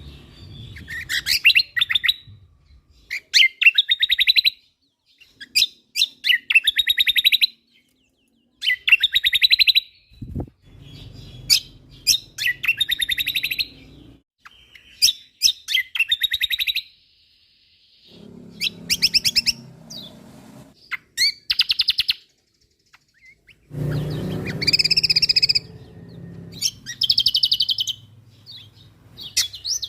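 Kecial kombok (cucak kombo) songbird singing continuously, phrase after phrase of rapid rattling trills, about one phrase every two seconds with short gaps between.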